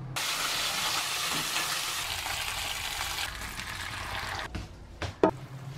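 Pork knuckles sizzling in a hot roasting pan: a loud, even frying hiss that weakens after about three seconds and stops about four and a half seconds in. Two sharp knocks follow, the second one loud.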